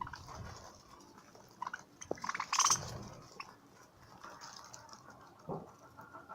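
Budgerigars chirping and chattering in short, scattered calls, with a louder burst of calls about two and a half seconds in.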